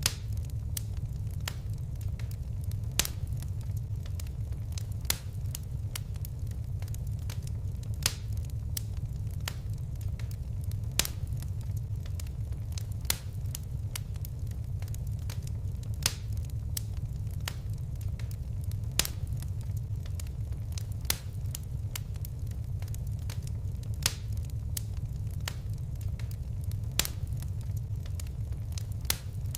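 Wood fire crackling: a steady low rumble of flames with frequent small snaps, and a louder sharp pop every two to three seconds.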